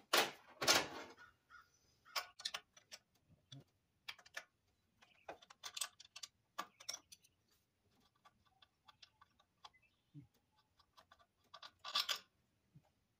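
Socket ratchet clicking in quick runs of small ticks as a 9/16 A/C compressor mounting bolt is worked loose, with a few louder knocks between the runs.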